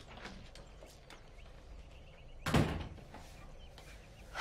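A door shut hard once, about halfway through: a single loud thud with a brief ring after it.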